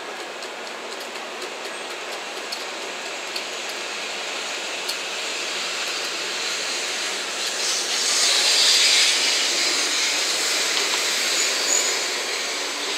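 An N700 series Shinkansen train pulling out of the station, its running noise a smooth rush that grows steadily louder as it picks up speed, with a hissing peak about eight seconds in and a few faint ticks early in the run.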